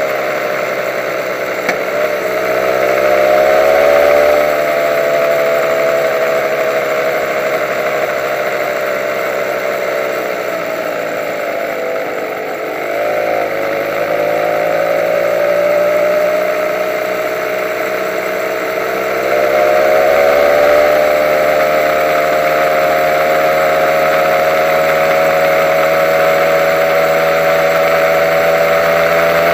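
Honda NSR150's two-stroke single-cylinder engine running at low road speed, its pitch rising and falling gently with the throttle, dipping about twelve seconds in and climbing again around twenty seconds in.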